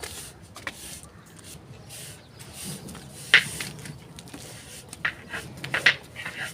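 A dry handmade ASMR crumbling block being crushed and broken up by hand: scattered sharp cracks and crunches over a faint gritty rustle. The loudest crack comes a little over three seconds in, with a cluster of cracks shortly before the end.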